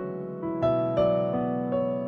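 Background music: a soft piano melody, one note after another every few tenths of a second.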